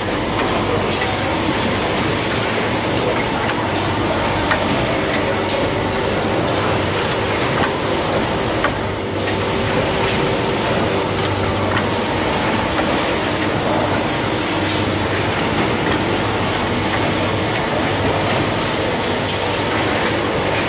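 Vojta SF1500 ice cream cup-filling machine running in production, a steady mechanical hum and hiss. The hiss dips in a repeating cycle about every three seconds as the machine indexes and fills tubs.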